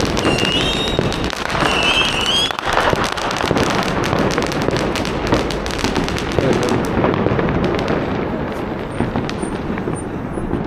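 Firecrackers crackling with dense, rapid pops and no let-up. Two short high whistles sound in the first two seconds.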